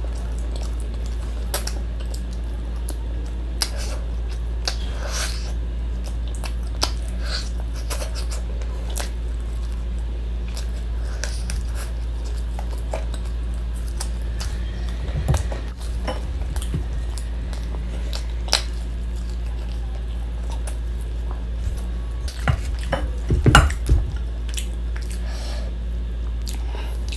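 Close-miked eating by hand: chewing and mouth smacks with scattered small clicks, and fingers working food against a steel plate, clattering twice, about halfway through and again near the end. A steady low hum runs underneath.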